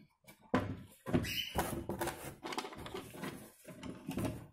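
Plastic dollhouse being handled and shifted about, with a run of knocks, bumps and rubbing of hard plastic starting about half a second in.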